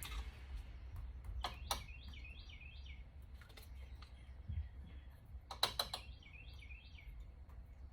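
A bird chirping in quick repeated phrases, twice, over a steady low hum, with a few sharp clicks and taps just before each run of chirps.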